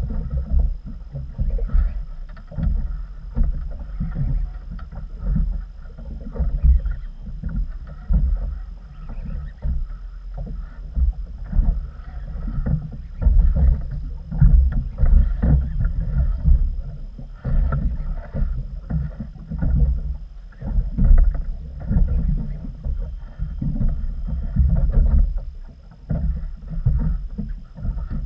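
Waves slapping against the hull of an inflatable boat, with wind buffeting the microphone in uneven gusts.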